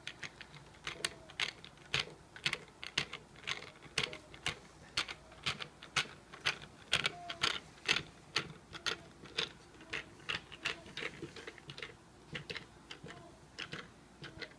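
Hand screwdriver driving small screws through a metal bracket into wood, a run of sharp clicks a few times a second as the handle is turned and re-gripped.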